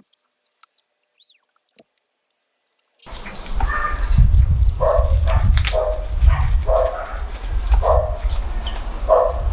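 A dog barking repeatedly, about six short barks less than a second apart, over a steady low noise, all starting about three seconds in after near silence.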